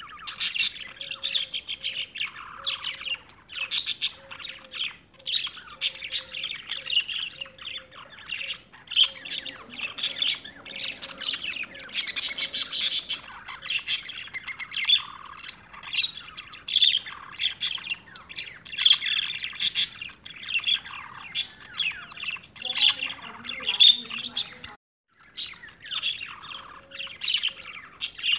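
Many small birds chirping and tweeting at once, a dense chorus of short calls. The sound cuts out for a moment about 25 seconds in.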